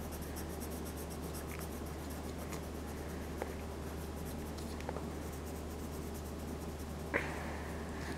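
Pencil scratching on paper in short shading strokes, with a few light ticks, the sharpest about seven seconds in, over a steady low hum.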